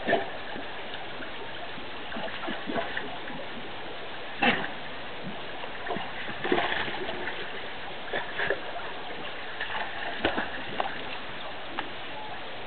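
Irregular small splashes of water at a concrete trough, as a dog drinks from it, over a steady background hiss.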